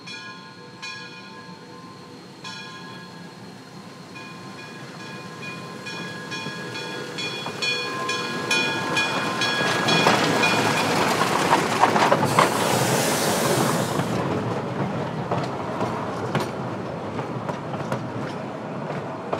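Narrow-gauge steam locomotive approaching with its bell ringing, the strokes coming faster partway through. The train's running noise grows steadily louder, with a loud hiss in the middle as it draws near.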